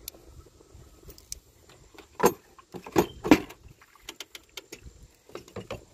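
Small metal bolts clinking in the hand and the plastic coolant reservoir knocking as it is lifted out of its mounts. There are scattered light ticks, then three sharper clinks a little over two seconds in, at about three seconds and just after.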